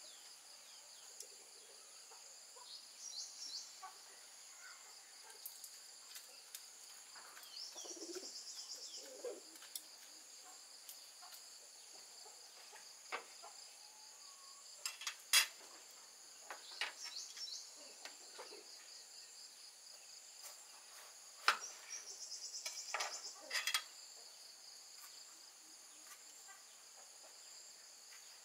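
A steady high-pitched chorus of insects, with scattered knife clicks and taps on a wooden cutting board as pineapple and green bell pepper are cut. The sharpest knocks come about halfway through and again about two-thirds through.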